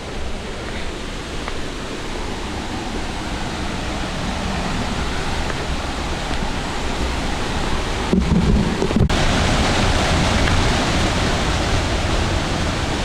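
Rushing water of a river in spate after heavy rain, running through a narrow rock gorge: a steady, dense roar with no breaks. It grows somewhat louder about eight seconds in.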